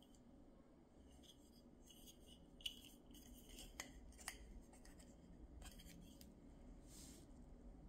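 Faint handling of a small hard plastic Marvel Nano Pod capsule: fingers rubbing and gripping the hexagonal pod with a few light plastic clicks, the sharpest about two and a half seconds in and two more around four seconds in.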